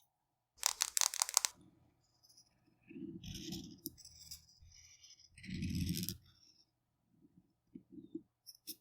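A quick run of sharp clicks about a second in, then two scratchy strokes of a drawing tool rubbing on paper, the second one longer, as a paper design is coloured in; a few light taps near the end.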